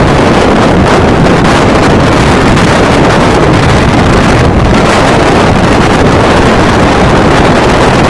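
Loud, steady wind buffeting the microphone of a moving vehicle, mixed with the rush of travel along the road.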